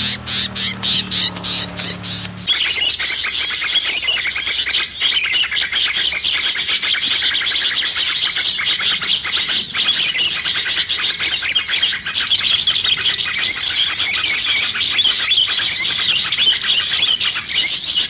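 Birds chirping and twittering continuously in a dense, high-pitched chorus that starts abruptly about two and a half seconds in. Before it, a rapid pulsing sound over a low hum.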